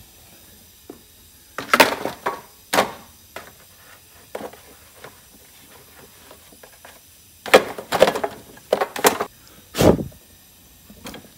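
Handling knocks and clatters as the blower housing cover of a Briggs & Stratton Intek V-twin engine is lifted and set in place over the flywheel fan. There is a cluster of sharp knocks about two seconds in and another run of knocks from about seven and a half to ten seconds.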